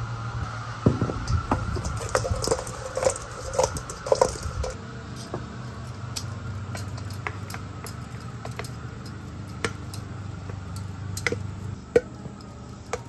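Sauced chicken wings being tossed in a stainless steel mixing bowl: wet squishing with clanks and knocks against the metal over the first few seconds, then sparse clicks of metal tongs as the wings are lifted onto a cutting board. A steady low hum of lawn mowers runs underneath.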